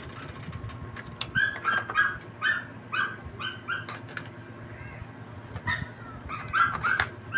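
A dog yipping repeatedly in quick runs of short high calls, with a lull near the middle. Two sharp clicks come about a second in and near the end.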